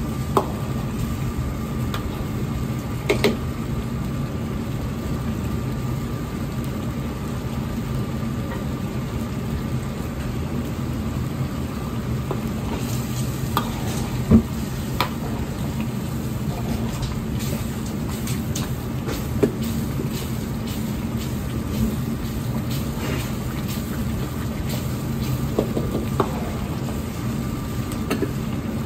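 Minced-pork zhajiang sauce bubbling in an iron wok over a gas burner, stirred with a steel ladle that clinks against the wok several times, the sharpest clink about halfway through. A steady hum runs beneath.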